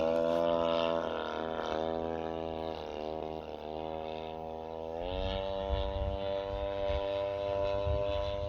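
The 40cc twin-cylinder boxer two-stroke engine of an RC plane drones steadily in flight. Its pitch rises about five seconds in, and a low rumble comes in at the same time.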